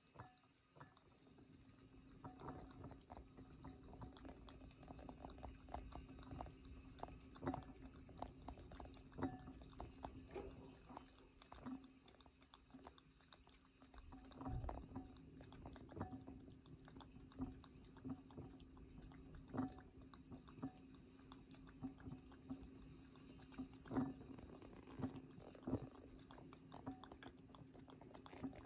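Domestic cat lapping water from a bowl: a faint, quick run of small wet clicks that goes on without a break.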